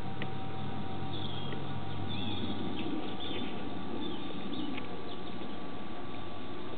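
Short high chirps and squeaks, like small birds, scattered over a steady hiss and hum. A low drone underneath fades out about two and a half seconds in.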